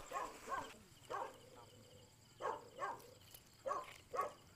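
A dog barking, about seven short barks, mostly in quick pairs.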